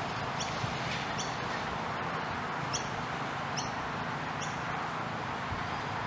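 A bird calling with a short, high, falling chirp, repeated about once a second over a steady background hiss, falling silent about four and a half seconds in.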